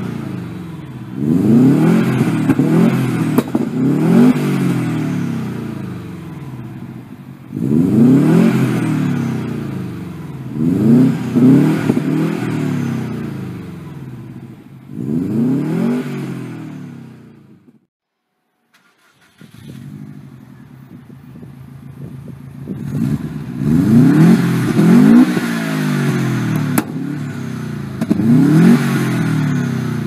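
Subaru Impreza's flat-four engine blipped repeatedly through a RaceBox aftermarket exhaust, each rev rising and falling back. After a short break about 18 s in, it idles for a few seconds and is then revved again several times.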